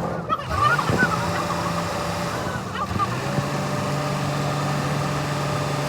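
A motor running with a steady hum, speeding up about half a second in, easing off near three seconds and speeding up again to hold steady.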